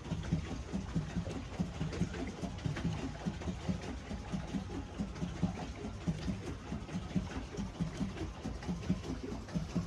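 Pedal boat under way, its pedal-driven paddle wheel churning the water in a steady rhythm of about three beats a second.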